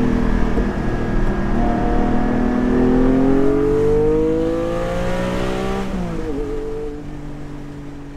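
Porsche 718 Cayman GT4's 4.0-litre flat-six with its exhaust valves open, heard from the cabin: the revs climb steadily for several seconds under acceleration, then fall quickly about six seconds in and settle at a steady lower note as the sound fades out.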